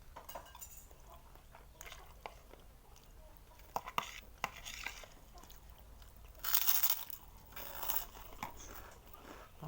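A person biting and chewing crunchy food close to the microphone: scattered crisp crunches, with the loudest ones about six and a half and eight seconds in.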